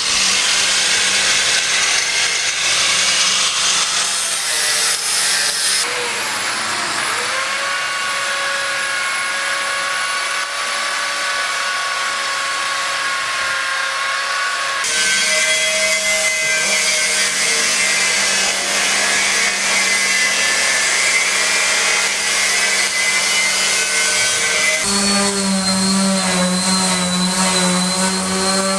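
Power tools running during building work, heard in several cut-together clips. About six seconds in, one motor dips and then spins up to a steady whine.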